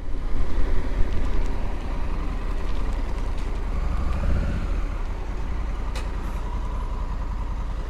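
Honda Africa Twin motorcycle riding slowly, its parallel-twin engine running at low revs under a steady low rush of wind and road noise on the helmet camera.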